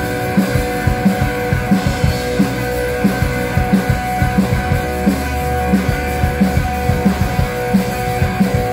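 Rock band playing live: electric guitars holding sustained chords over a steady drum-kit beat.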